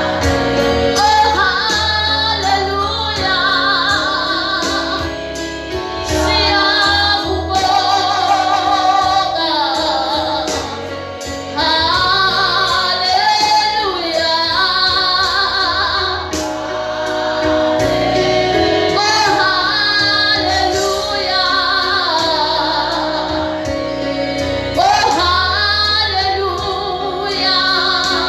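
Gospel music: a woman's voice singing with vibrato over steady instrumental accompaniment with a bass line.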